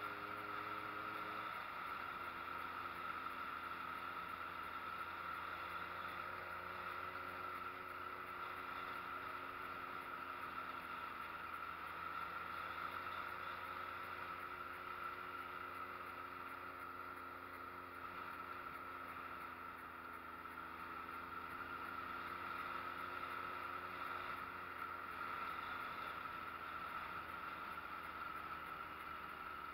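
Street motorcycle engine running while riding, its note stepping down about a second and a half in, then sinking and rising gently with speed, over steady wind and road noise.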